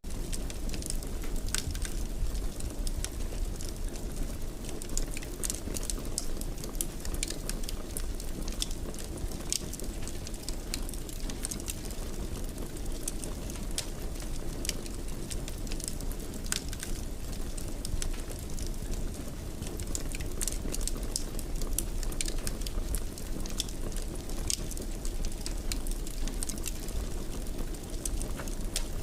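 Wood fire in a fireplace crackling: a steady low rumble of burning with frequent small sharp pops and snaps throughout.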